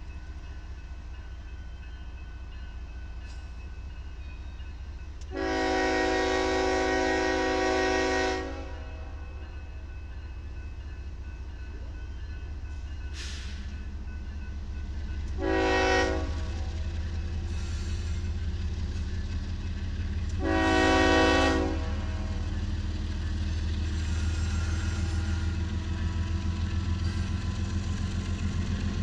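Diesel freight locomotive's multi-chime air horn sounding for a grade crossing: a long blast, then a short one, then another long one. Between and after the blasts the low rumble of the engine and wheels grows louder as the train comes up to the crossing, ending in a steady rhythmic pulsing of wheels.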